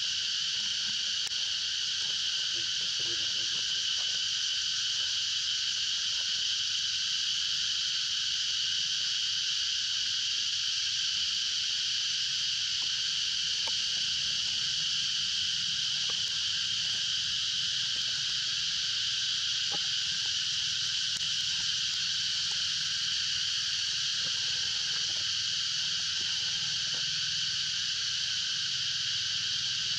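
Steady chorus of insects: a high, even buzzing drone, unbroken and unchanging in level throughout.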